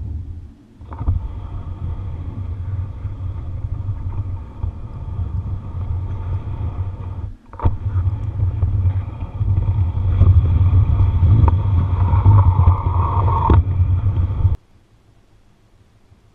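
Low, steady rumble of a G-scale model train pushing a snowplow through deep snow, picked up by a camera riding on the train. It drops out briefly twice and stops suddenly near the end as the train halts.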